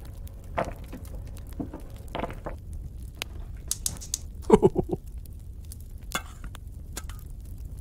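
Small clay miniature pieces being picked up, handled and set down on a tabletop: scattered light taps, clicks and knocks. A short, louder pitched sound comes about four and a half seconds in.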